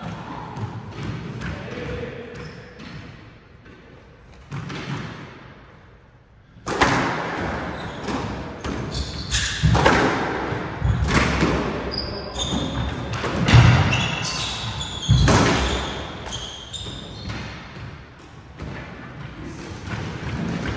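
A squash rally in an enclosed court: the ball cracks off racquets, the front wall and side walls in a quick run of sharp, echoing hits, with sneakers squeaking on the hardwood floor. The rally starts about a third of the way in, and the hits thin out near the end.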